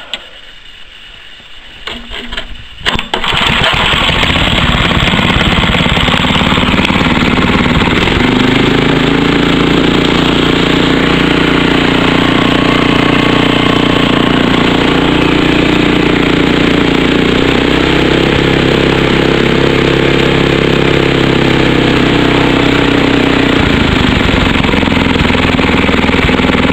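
Old Ariens snowblower's small gasoline engine catching on the pull-start about three seconds in, after a few quieter pulls, then running steadily and loud. It is a cold start of a long-unused engine helped by a shot of starting fluid, right after the recoil starter was repaired.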